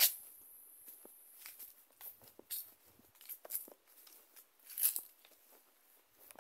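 Footsteps through grass and dry leaves: an irregular series of short crunching rustles and scuffs, the loudest at the very start and about five seconds in.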